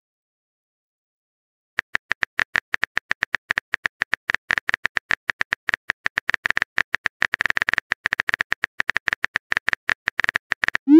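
Rapid phone-keyboard tap clicks from a texting app's typing sound effect: a dense, irregular patter of short clicks, many a second, starting about two seconds in. Right at the end a rising swoop of the message-sent sound begins.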